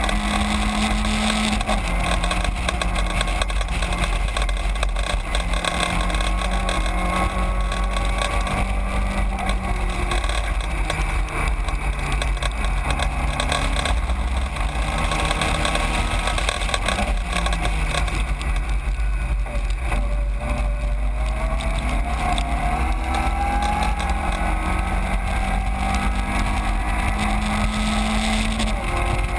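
Caterham 7 race car's engine at racing speed, its note rising and falling through gear changes and dropping low about two-thirds of the way through before climbing again.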